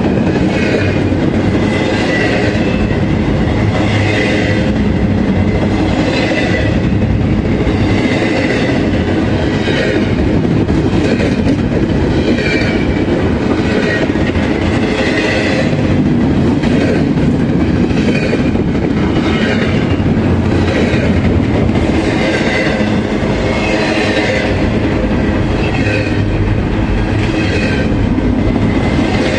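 Canadian Pacific freight train cars rolling past close by: a steady heavy rumble of wheels on rail with clickety-clack. High-pitched metallic squealing comes and goes every second or two.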